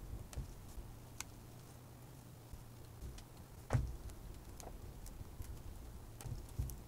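Scattered light ticks and taps of hands packing dry sphagnum moss onto a black plastic mesh panel, with a louder knock about four seconds in and another near the end.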